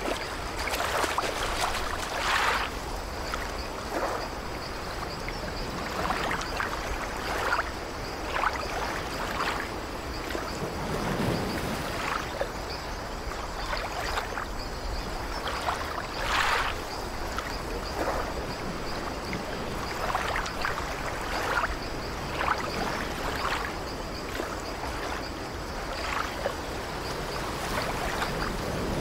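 Sea surf: small waves washing onto a shore in a steady rush, broken by irregular short splashes.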